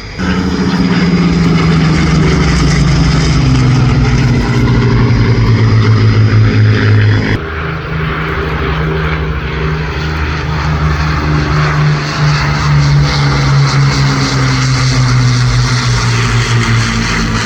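Piston-engined Second World War propeller aircraft flying past, their engine drone falling steadily in pitch as they go by. About seven seconds in the sound changes abruptly to another pass, whose pitch again falls slowly.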